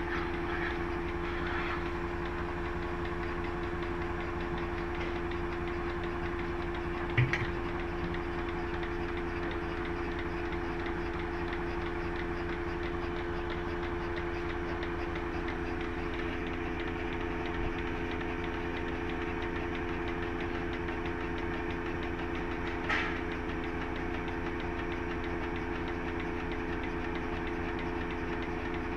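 A motor-driven machine running steadily with an even hum and a fast low pulse; a second, lower hum tone joins about halfway. Two brief sharp knocks stand out, about seven seconds in and again near the end.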